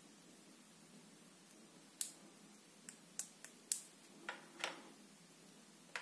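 Faint clicks and taps of small plastic soap-pump parts being handled and set down on a countertop. Six or seven sharp separate clicks, starting about two seconds in.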